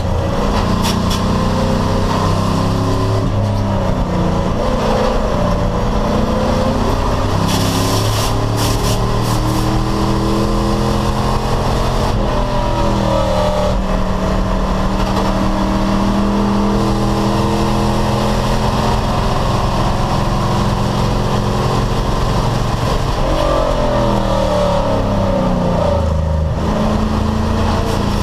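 Race car engine running hard at racing speed. Its pitch rises under acceleration and falls twice as it comes off the throttle and shifts down, with a short burst of hiss about eight seconds in.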